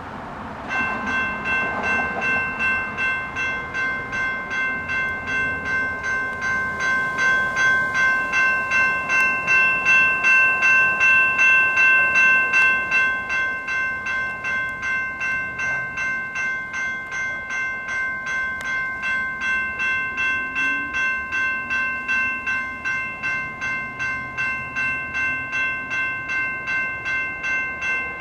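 Two GS Type 2 electronic crossing bells start up about a second in as the railroad crossing signals activate. They keep up a steady ringing ding of about two strikes a second, loudest around the middle.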